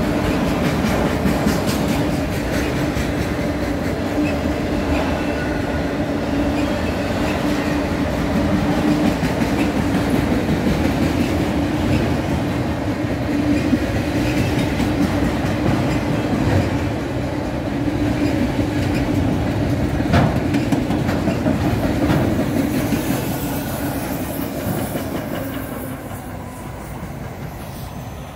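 Freight train of autorack cars rolling past, wheels clacking over the rail joints with a steady hum. A single sharp clank comes about 20 seconds in, and the sound fades away near the end as the last cars go by.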